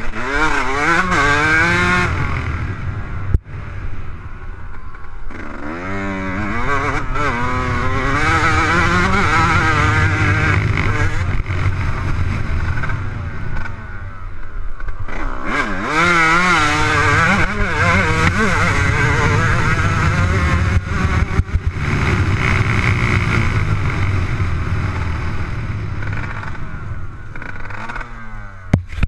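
Motocross bike engine under way, its revs rising and falling over and over as the throttle is worked and gears change, with brief drops off the throttle a few seconds in and again around the middle.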